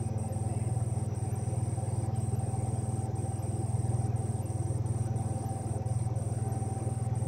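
Steady low motor hum that runs evenly throughout, with a high, continuous insect shrill over it that breaks off briefly at regular intervals.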